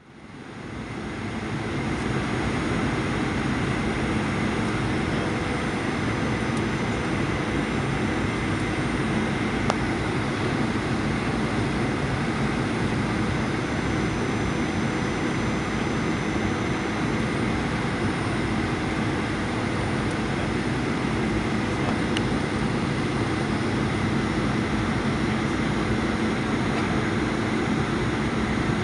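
Steady engine and airflow noise heard inside the cabin of a Boeing 737-800 on final approach, from its CFM56-7B turbofans, with a few faint steady tones in it. It fades in over the first second or two, then holds level.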